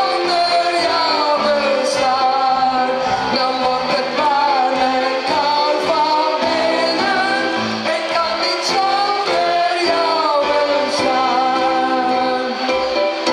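A large group of men and women singing a Dutch sing-along song together over band music with keyboard and drums, amplified through a PA.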